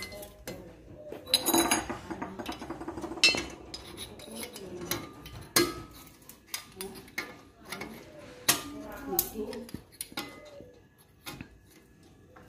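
Irregular metallic clicks and clinks of a hand wrench working a bolt on a steel TV wall bracket, some with a short ring, as the bracket bolts are tightened to the wall.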